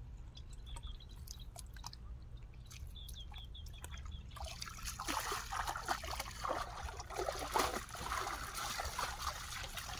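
Hands groping and splashing in shallow muddy water, feeling for fish. It is sparse and quiet at first, then from about four seconds in becomes a busier run of small splashes and sloshes.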